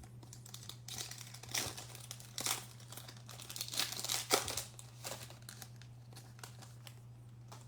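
Trading card pack wrapper crinkling and tearing as a pack is ripped open, in a run of irregular rustles over the first five seconds, loudest about four seconds in.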